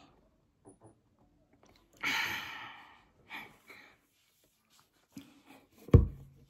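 A long exhaled sigh about two seconds in, fading over a second. Near the end, a single heavy thump, the loudest sound here.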